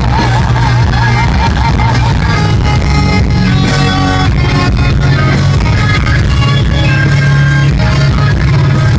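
A rock song playing loud and steady, with a held, wavering note near the start.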